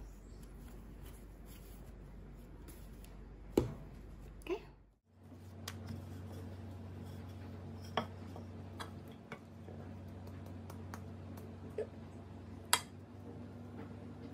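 A few sharp taps and knocks from working bun dough with a wooden rolling pin on a granite countertop, over a steady low hum that cuts out briefly about five seconds in.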